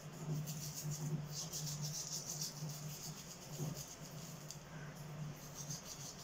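Manual toothbrush scrubbing teeth in repeated back-and-forth strokes, over a steady low hum.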